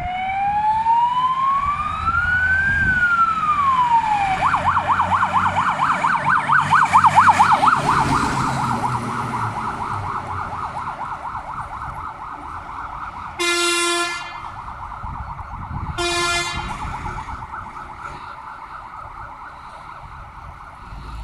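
Fire engine's siren on an emergency run. It starts as a slow rising-and-falling wail and about four seconds in switches to a fast yelp, which fades as the truck moves away. Midway the truck's horn sounds twice in short blasts, over a low engine rumble.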